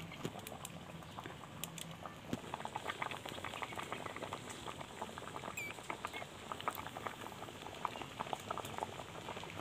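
A pot of vegetables and meat at a rolling boil over a wood fire: a dense, irregular patter of bubbling and popping.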